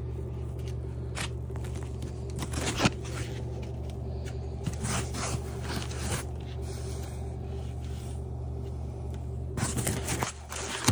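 Polystyrene foam packing being handled and pulled off a new e-bike, scraping and rustling in irregular bouts, over a steady low hum.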